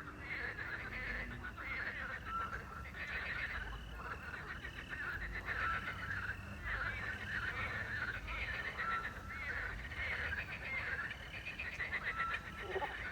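Night chorus of frogs croaking densely and continuously, with a small owl's short, even whistled note repeating about every three seconds, over chirping crickets.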